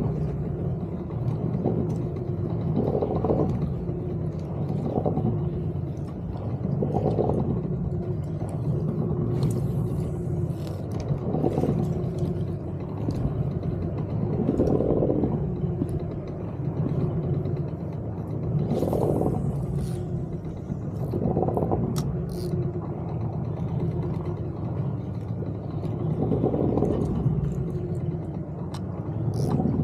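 Small fishing boat's engine running steadily, with a louder wash of water swelling every few seconds.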